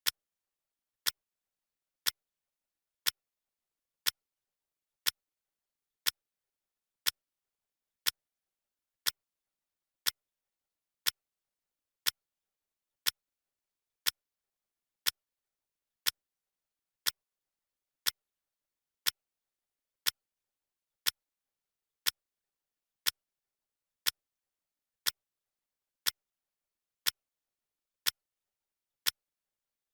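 Clock ticking sound effect: one sharp tick every second, evenly paced, with silence between the ticks.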